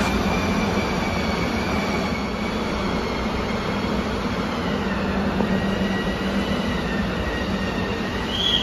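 A steady mechanical drone with a low hum and faint high whining tones held level, and a short higher squeak near the end.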